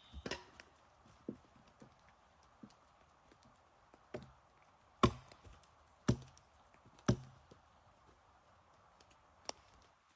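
A series of sharp knocks at irregular intervals, with three louder ones about a second apart near the middle.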